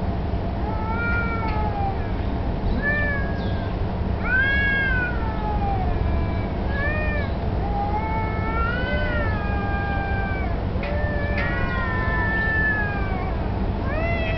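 Street cats yowling: a string of long, wavering calls that rise and fall in pitch, one after another every second or so. The uploader takes it for a territorial standoff, or perhaps courtship.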